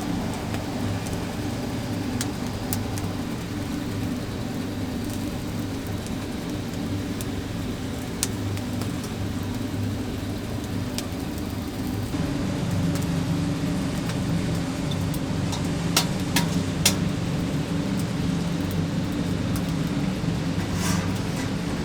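Steady low mechanical hum with scattered sharp clicks and crackles. About halfway through, the hum shifts slightly lower in pitch and grows a little louder.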